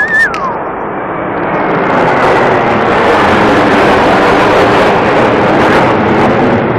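A formation of jet fighters passing overhead: a loud, steady jet roar that builds over the first two seconds and holds. A brief wavering whistle is heard right at the start.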